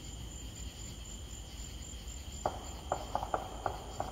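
Distant gunshots: a quick, irregular string of about six sharp pops starting a bit over halfway through. Under them, the steady chirring of night insects.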